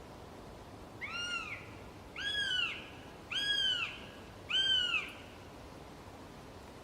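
A bird calling four times, about a second apart: each call a clear, mewing note about half a second long that rises and falls in pitch, the later calls a little louder.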